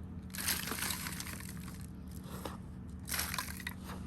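Homemade potting-soil mix being tipped and spread over a seedling tray: two short bursts of gritty rustling and crumbling, over a faint steady hum.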